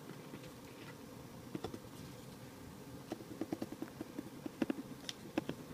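Serrated knife sawing through a sponge cake layer around a glass bowl. A few light ticks come about a second and a half in, then a quicker, uneven run of them in the second half.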